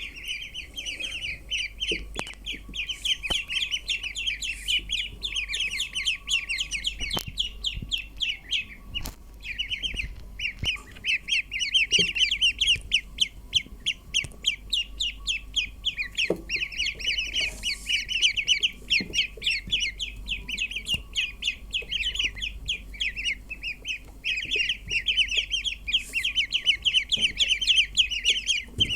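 A group of ducklings peeping together: a dense chorus of rapid, high, short peeps that overlap continuously, easing off briefly a few times.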